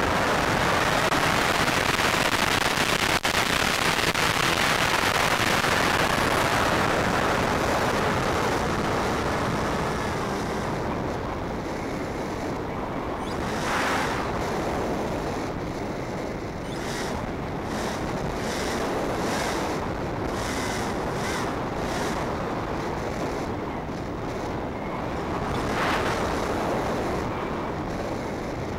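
Steady rushing of air over the microphone of a small electric RC plane in flight, loudest in the first several seconds and fainter as it glides, with brief swells about 14 and 26 seconds in.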